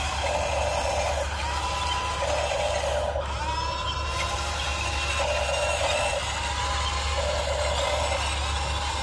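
Electric drive motors and gearboxes of a radio-controlled Huina excavator whirring in short spells that start and stop every second or so as its tracks and boom are worked. A thin motor whine rises and then falls several times.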